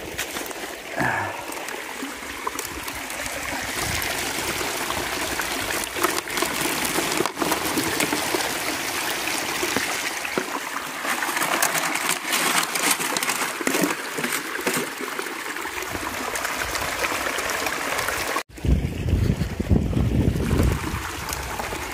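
Water rushing steadily down the sluice of a running Keene Mini Max high banker. After a brief break about 18 seconds in, a deeper rumble is louder under the water.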